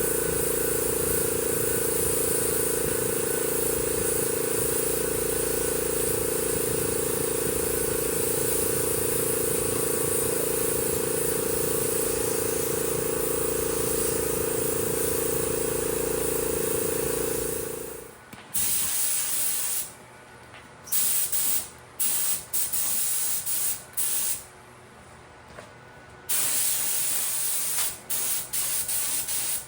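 HVLP-style spray gun hissing as POR-15 paint is sprayed onto a car floor pan. For the first eighteen seconds or so a steady machine hum with a strong tone runs under the hiss, then cuts off. After that the gun sprays in a series of short bursts of hiss.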